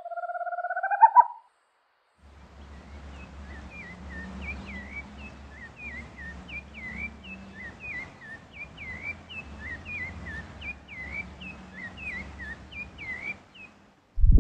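A short rising tone at the start, then a rufous-bellied thrush singing: a regular series of short, hooked high notes, about two a second, over a low background hum.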